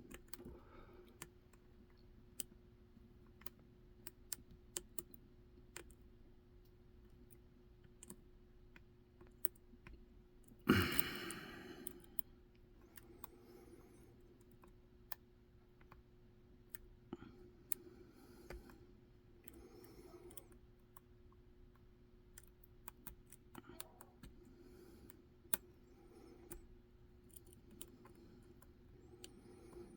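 Lock picking in an ABUS EC75 lock: a small flag pick and tension bar making faint, irregular clicks and scrapes in the heavily warded keyway as the pins are worked. One louder noise about eleven seconds in.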